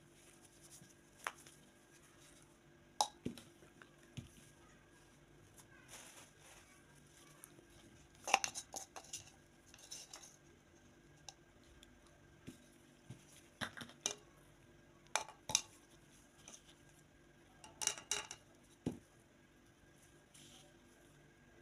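Metal mesh strainer and plastic bowl and grinder cup handled, knocked together and set down: scattered light clicks, taps and knocks of metal and plastic, in a few short clusters.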